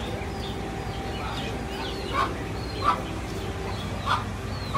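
Birds calling: high chirps throughout, and four louder short calls from about two seconds in, over a steady hum.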